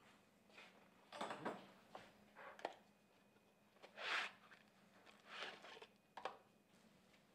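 Handling sounds of a new engine timing chain being unpacked: short rustles and scrapes of the cardboard box and clicks of the steel chain links, about seven in all, the loudest about four seconds in.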